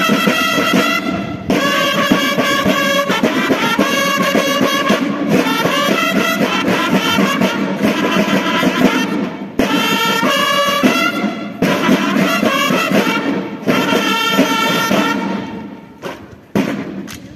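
A banda de guerra of bugles and snare drums playing a march, the bugles sounding in repeated phrases with short breaks between them over the drums. Near the end the playing stops, leaving a couple of single sharp strokes.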